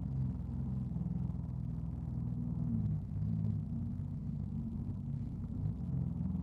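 Jet ski engine running underway through choppy water, a low drone whose pitch shifts up and down as the throttle and waves change.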